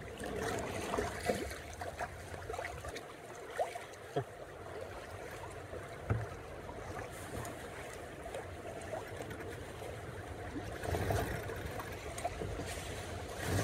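Water lapping and splashing along a sailboat's hull as it moves through light chop, with a low rumble of wind on the microphone that grows about eleven seconds in.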